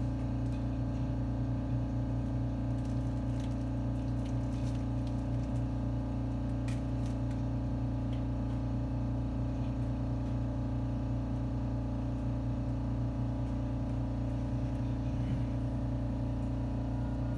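Steady electrical hum and blower noise from the onboard equipment of a JR 313-series electric train, heard inside the passenger cabin while the train stands at a station, with a few faint clicks.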